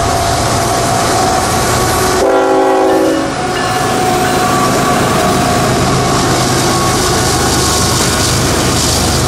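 CSX diesel freight locomotives passing close by at speed, with a steady engine rumble and rolling wheel noise. The air horn sounds a short chord about two seconds in.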